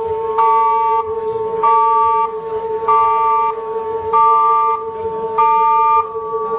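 Live electronic music: a steady drone tone, with a pair of higher electronic tones pulsing on and off about every second and a quarter.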